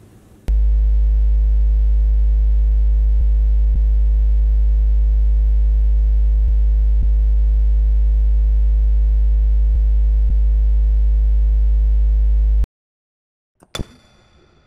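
A loud, steady low electronic buzz starts abruptly about half a second in and cuts off suddenly near the end. After a short silence comes a single sharp click with a brief ringing tail.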